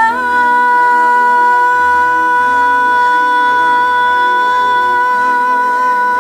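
A solo singer holds one long high note on the word "at" over a backing track of shifting chords and bass. The note stays steady and takes on a slight vibrato near the end.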